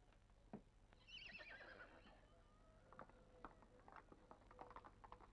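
Faint horse whinny: one falling, quavering call about a second in, followed by hooves clip-clopping in an uneven run of ticks.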